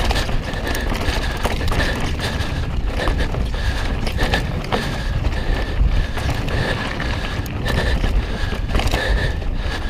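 Mountain bike riding along a dirt trail: tyres rolling over the ground, with knocks and rattles from the bike over bumps, under heavy wind noise on the microphone. A thin, high, steady tone keeps coming and going.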